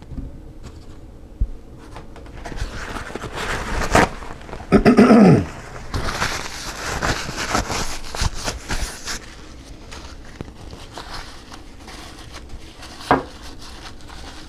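Small parts and tools handled on a workbench: scattered clicks and knocks, a short squeak that falls in pitch about five seconds in, and a few seconds of rustling just after.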